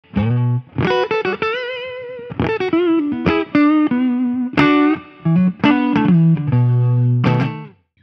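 Electric guitar, a Strat-style Crews Maniac Sound ST-60 with K&T S-61 Supreme pickups, played through a Fender Vibro King tube amp. It plays a phrase of short chord stabs and single notes, one held note wavering in pitch about a second and a half in, and the sound breaks off just before the end.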